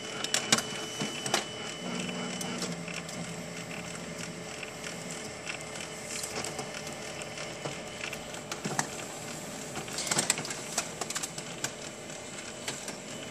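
Samsung CLX-3175FNK colour laser printer running a print job: a steady mechanical whirring with frequent clicks. A high whine sounds for the first couple of seconds, and a cluster of clicks comes about ten seconds in.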